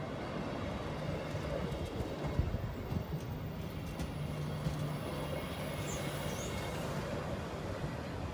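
SBB NPZ 'Domino' regional electric train passing close by, its wheels rolling over the rails with a steady low hum and a few knocks about two to three seconds in.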